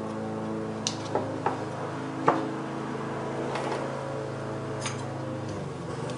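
A few light clicks and taps of spoons against a shortening can and a glass jar, over a steady low background hum.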